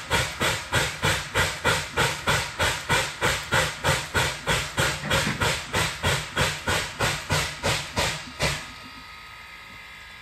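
Steam-driven air pump on a standing steam tank locomotive, panting in an even beat of about three strokes a second with steam hiss. It cuts off abruptly near the end.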